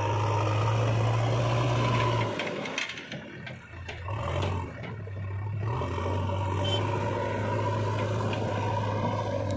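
JCB 3DX backhoe loader's diesel engine running steadily under load. For about two seconds a couple of seconds in it goes quieter, with a few clicks and scrapes, then runs steadily again.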